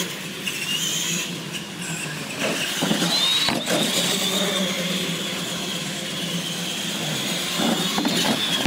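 Radio-controlled monster trucks' motors whining as they drive, the pitch rising about three and a half seconds in and dropping near the end.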